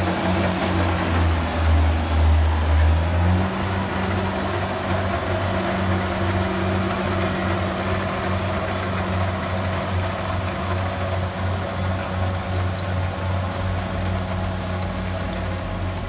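Kubota rice combine harvester's engine running steadily under load while reaping, a low pulsing drone. About three seconds in the low hum eases and the pitch steps up slightly.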